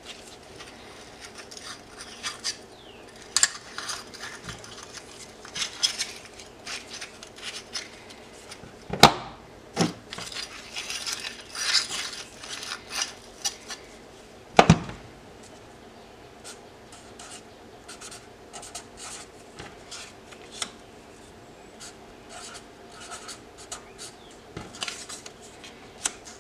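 Flat steel bars of 1084 and 15N20 clinking, sliding and scraping against each other and the metal bench top as they are shuffled and set down in stacks. Two sharper, louder clanks stand out, about a third and just over halfway through.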